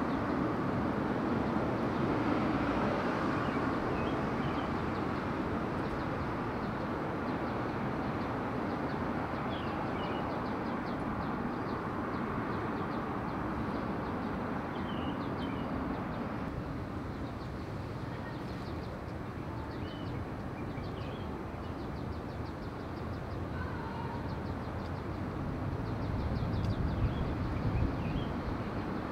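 Outdoor ambience: a steady background hubbub with small birds chirping now and then. A low rumble swells near the end.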